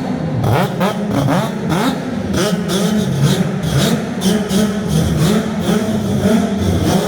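Racing car engines accelerating hard at full throttle, the pitch climbing in repeated sweeps and dropping back at each gear change.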